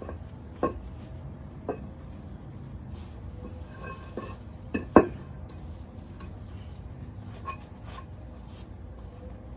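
Scattered sharp clinks and knocks of hard objects striking each other, about six in all, the loudest about five seconds in, over a steady low rumble.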